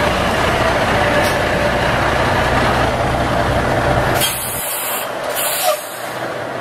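Semi-truck's diesel engine idling with a steady low rumble, then two sharp hisses of compressed air released about four and five seconds in, typical of the air brakes being set.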